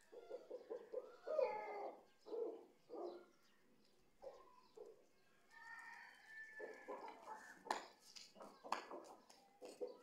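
Aseel chickens clucking in short calls while being fed, with a run of sharp taps near the end.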